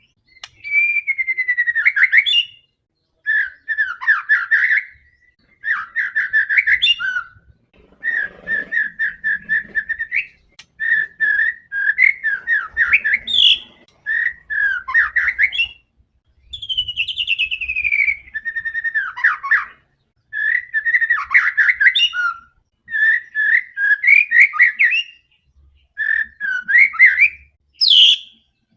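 White-rumped shama (murai batu) in full song: a dozen or so loud phrases of one to two seconds, each split by a short pause, mixing clear whistled notes, rapid trills and rising and falling slurs.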